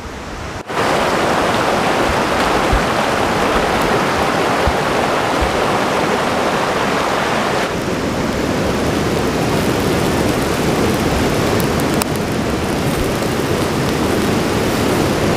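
Chicken tikka on skewers sizzling over a charcoal grill as cooking oil is brushed on with a pine-needle brush. A steady sizzling hiss starts abruptly about a second in, with a few faint crackles.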